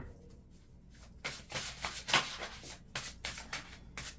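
Tarot cards being shuffled by hand: a quick run of short card flicks and slides starting about a second in.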